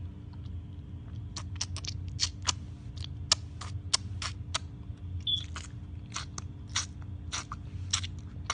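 A run of short wet clicks and smacks, two or three a second, starting about a second in, over a steady low hum.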